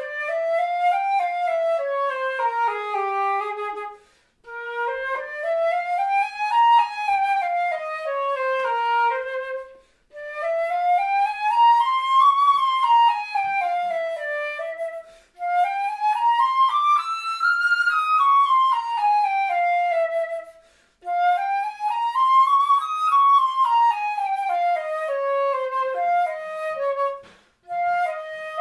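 Flute playing scales: runs that climb note by note and come back down, in phrases of about five seconds with a short breath between each.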